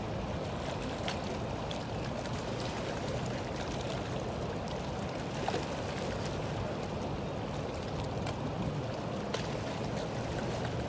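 Steady rushing of a fast river current flowing past rocks, with a few faint clicks.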